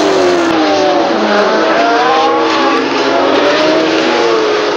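Several Formula One racing car engines at high revs, their notes rising and falling against each other as the cars pass, over a dense hiss.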